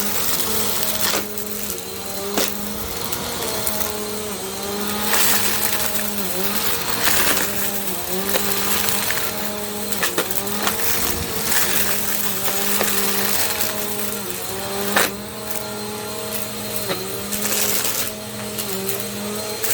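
Bissell compact vacuum cleaner running steadily while vacuuming; its motor hum dips briefly in pitch every second or two. Scattered sharp clicks and crackles sound over it.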